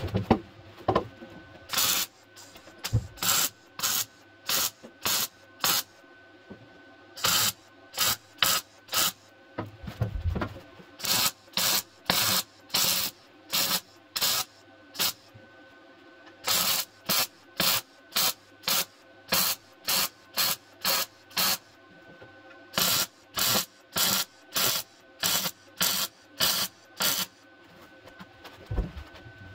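MIG welder arc crackling in short pulses as it stitch-welds thin car-body sheet steel along the new rear inner wheel-arch seam. Each burst lasts about a third of a second, about two a second, in four runs with brief pauses between them.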